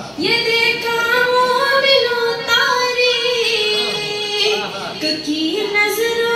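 A woman singing a manqabat, a devotional praise poem, solo into a microphone: long held notes with ornamented turns between them.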